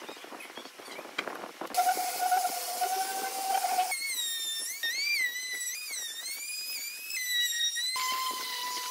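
Electric woodworking tools whining in a run of short clips that switch abruptly, the first whine starting after a second or two of scratchy clicking. In the middle clip the pitch wavers up and down as the tool is loaded.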